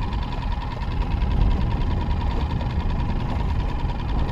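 Boat motor running steadily: a low rumble with a faint, steady whine above it.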